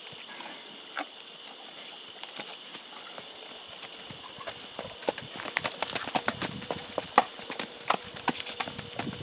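Hooves of a mare and her foal walking on hard, dry dirt: irregular clopping steps, sparse at first and thicker and louder from about halfway in.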